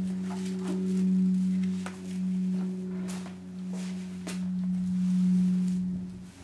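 A steady low hum that swells and fades in loudness, with a few faint clicks over it.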